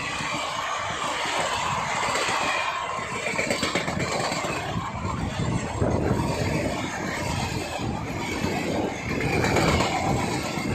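Indian Railways passenger express coaches rolling past close by: a continuous rumble of steel wheels on the rails with dense rattling and clatter, a little louder in the second half.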